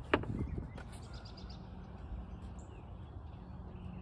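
Rear seat cushion of a BMW 535i being pried loose, with one sharp click just after the start as it pops off its retaining clips, then a few softer knocks. Birds chirp faintly over low, steady background noise.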